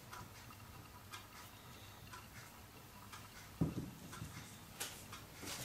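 Faint, irregular small clicks and taps of hands folding and pressing puff-pastry strips around a filling on a silicone baking mat, with one soft thump a little after halfway.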